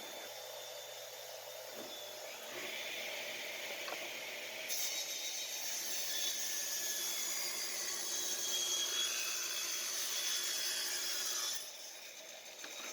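A power saw cutting through a wooden board, a steady hiss of the cut that builds about two seconds in, grows louder about five seconds in and stops near the end.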